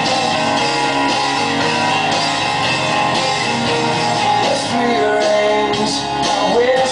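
Pop-rock song playing, with guitar and some singing.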